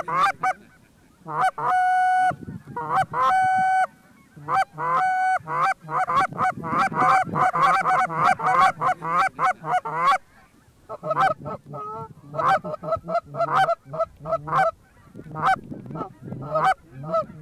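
Canada goose honking and clucking in rapid, dense runs, with two longer held honks about two and three and a half seconds in and short pauses between runs, as geese come in to decoys.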